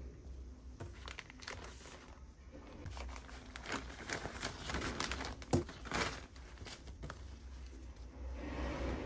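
Frosted plastic zip-lock bags crinkling as a hand reaches in and pulls out a sports top. The crackles are busiest in the middle, with a softer rustle near the end.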